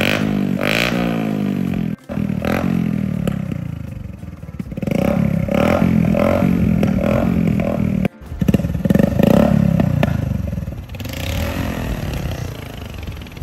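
Bajaj Platina single-cylinder motorcycle engine revved again and again through its exhaust, rising and falling in pitch. It cuts out abruptly twice, about 2 and 8 seconds in, and runs lower and quieter near the end.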